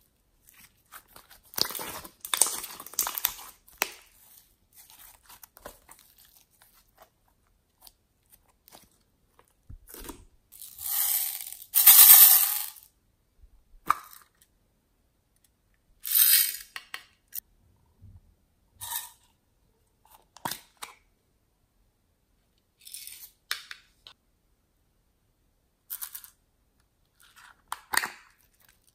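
Plastic add-in containers being opened and handled with sticky slime: a series of short crackling and tearing noises, the loudest and longest about twelve seconds in.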